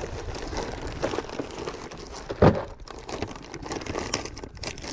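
Plastic bags of soft plastic baits crinkling and rustling as hands dig through a canvas tackle bag, with irregular small clicks and one sharp knock about halfway through.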